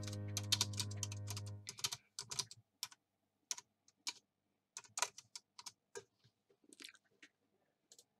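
A held musical chord ends about two seconds in, leaving a run of irregular light clicks and taps that thin out toward the end.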